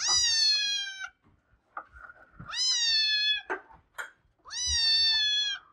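Kitten meowing three times, high-pitched calls each about a second long that dip slightly in pitch at the end.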